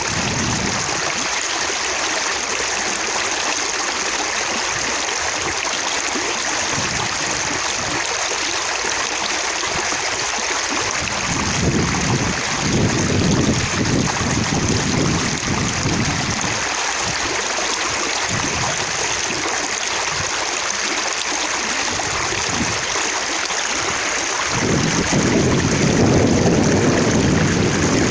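Running water splashing steadily, with droplets spattering. The low rush swells louder twice, around the middle and near the end.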